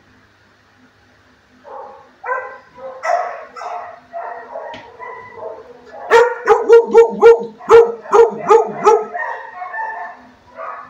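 A dog whining and yipping, then a quick run of about ten loud barks, roughly three a second, before settling back into softer whines.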